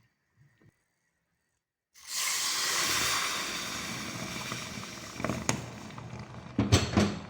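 Warm water poured into a pot of herbs: a loud hiss that starts suddenly about two seconds in and slowly dies away, with a few sharp knocks near the end.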